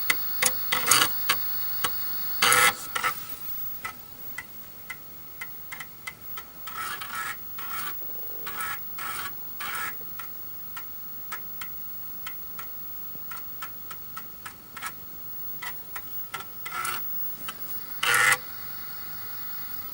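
Amiga 500 Plus 3.5-inch floppy drive reading a boot disk: irregular head-stepping clicks and short rasping seeks as the disk loads.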